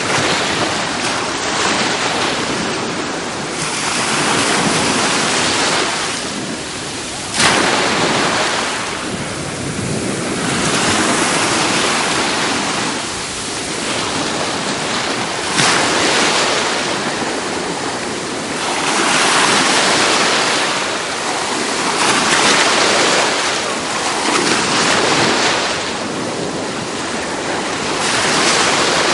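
Ocean surf washing onto the beach, the rush of water swelling and fading every few seconds, with a brief sharp knock about seven seconds in.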